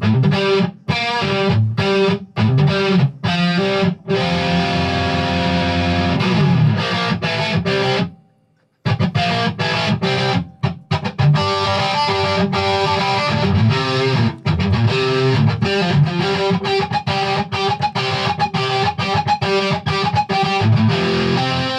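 Ibanez JEM 70V electric guitar played with distortion, a lead part: short, clipped stop-start notes at first, then held ringing notes, a brief full stop about eight seconds in, then a continuous run of notes.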